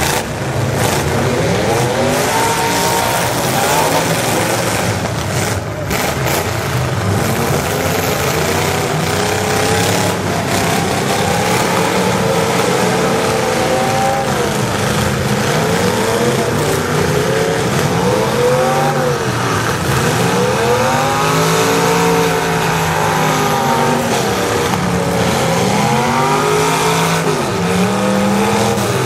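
Several demolition derby cars' engines revving hard at once, their pitches climbing and dropping over and over as the cars accelerate and back off, with the overlapping engine noise never letting up.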